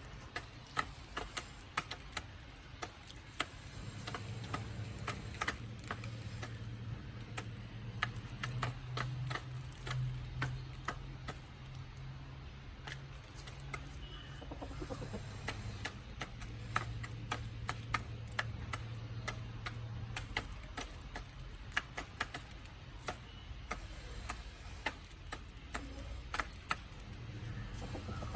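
Chickens pecking at their feed: an irregular patter of sharp ticks and clicks, over a low steady hum.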